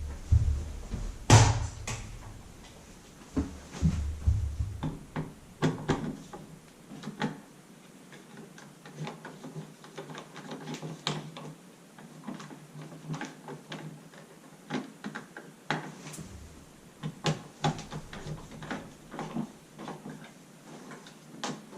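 Irregular clicks, taps and knocks of hands and a screwdriver working on a wall light switch as it is fastened into its box, with one louder knock about a second in.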